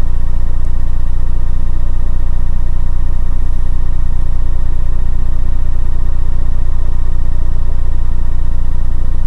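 A loud, steady low hum, with faint steady higher tones above it.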